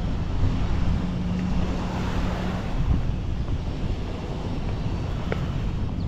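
Wind buffeting the microphone over beach ambience, with a low steady motor hum for the first couple of seconds.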